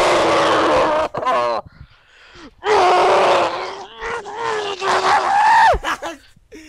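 A teenage boy's voice letting out three long, drawn-out wordless yells, the last one dropping sharply in pitch at its end. They are groans of frustration at failing a computer maze game again.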